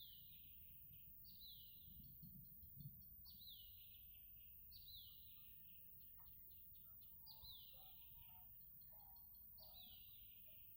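Faint birdsong: one bird repeats a whistled note that slides down in pitch, six times, with short chirps and a few lower notes from other birds in between.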